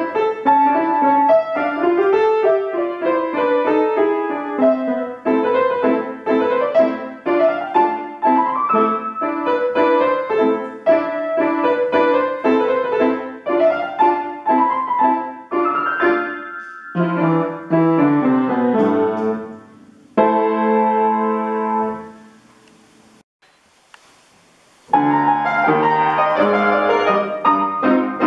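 Solo upright piano playing a flowing classical piece with rising and falling runs. Around twenty seconds in it ends on a final chord that rings and fades away. About three seconds later a trumpet-and-piano piece begins.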